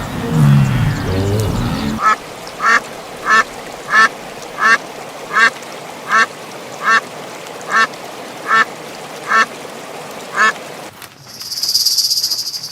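An animal calling in short, evenly spaced calls, about thirteen of them, one every two-thirds of a second, after low pitched animal sounds in the first two seconds. A brief hiss follows near the end.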